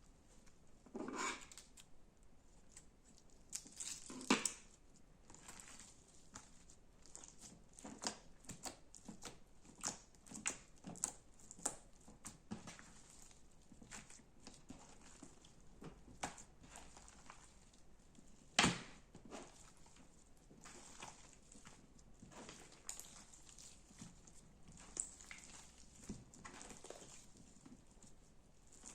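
Slime being squeezed and pressed by hand: irregular small clicks and pops, the loudest about four seconds in and again near the middle.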